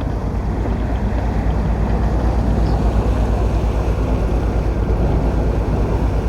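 Tour boat underway on a lake: its engine runs steadily with a deep rumble, and wind buffets the microphone.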